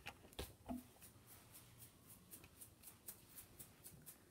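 Bristles of a stiff toothbrush flicked over and over to spatter white paint, a faint, regular flicking about four times a second. Two soft knocks in the first second.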